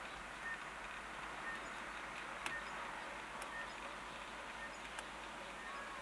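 Outdoor background of steady hiss, with a short high peep repeating about once a second and three sharp clicks, the loudest about two and a half seconds in.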